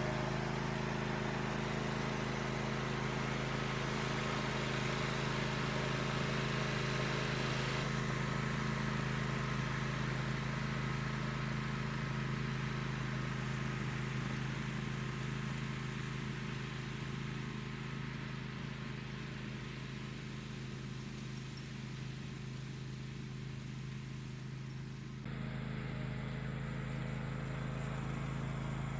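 Riding lawn mower engine running at a steady speed while mowing, with an abrupt shift in the sound about 25 seconds in.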